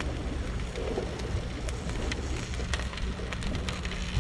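Charcoal fire crackling with irregular sharp pops as the foil-wrapped mullet in garlic butter cooks on the coals, over a steady low rumble.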